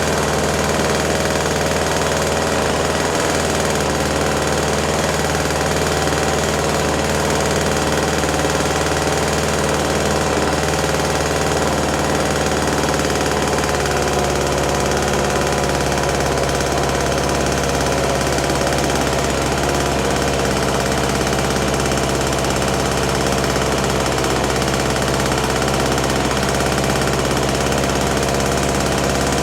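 Small two-stroke engine of a 1980s Toro Snowmaster 20 snow thrower running steadily, its note shifting slightly about halfway through.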